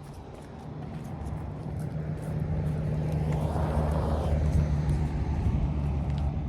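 A car going by close: its engine hum and tyre noise grow louder, peak about four to five seconds in, then begin to fade.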